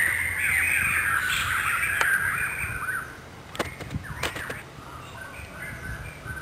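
Birds calling loudly together, a dense run of harsh short calls for about three seconds, followed by a few sharp clicks.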